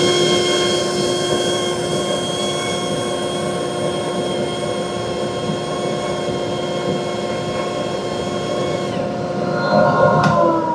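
Dust collector running: a steady motor and impeller whine over air rushing into the open inlet. About ten seconds in there is a sharp click, and the whine begins to fall in pitch as the machine winds down.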